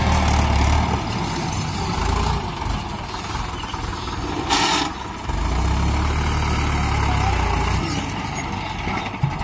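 Mahindra 585 DI XP Plus tractor's four-cylinder diesel engine working under load as it pulls a soil-loaded trolley over loose ground, its low rumble swelling in the first second and again from about five to eight seconds. A brief hiss cuts in about four and a half seconds in.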